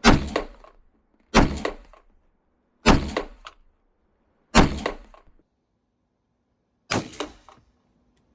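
MSBS Grot airsoft replica rifle fired in five single shots at uneven intervals, each a sharp crack with a short rattling tail.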